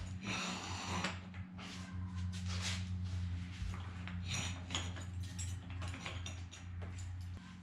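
Irregular metallic clicks, clanks and scrapes of lifting gear being worked to raise a car, over a steady low hum.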